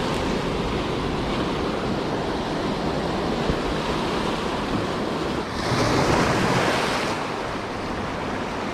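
Rough ocean surf washing against the rocks in a steady rush, with a bigger wave surging in about six seconds in. Wind buffets the microphone.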